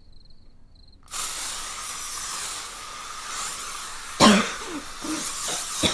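Aerosol spray can hissing in one long continuous spray that starts about a second in. About four seconds in, a woman coughs and splutters on the spray over the hiss.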